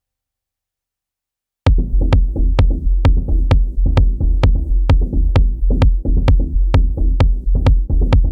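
Electronic drum beat from a Native Instruments Maschine 2 digital drum kit. It cuts out completely, then drops back in about a second and a half in with a steady bass and sharp hits about twice a second.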